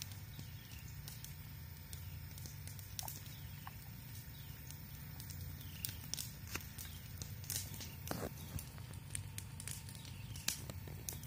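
Great Pyrenees–German Shepherd mix chewing a cedar stick: irregular cracks and crunches of splintering wood as the dog gnaws, over a steady low rumble.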